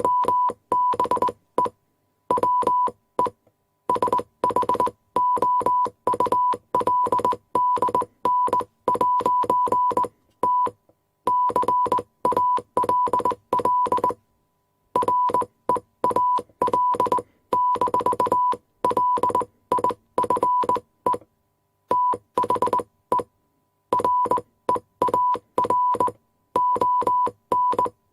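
Morse code sent as a steady beep tone, keyed on and off in short and long pulses (dots and dashes) with a click at each keying. The pulses come in groups with brief pauses between them.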